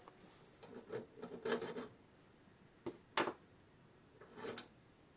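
Small metal parts of a synchronous clock movement being handled during disassembly: a few light clicks and rubs, the sharpest click about three seconds in.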